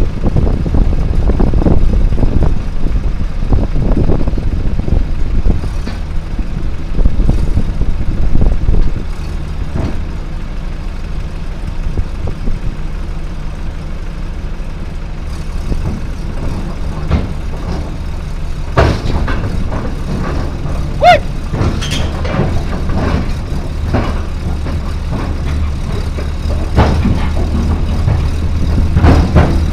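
Cat D3C bulldozer's diesel engine running under varying load, heard from the operator's cab. It is louder and rougher for the first several seconds, then settles. About two-thirds of the way through come several sharp metallic clanks and a short squeal.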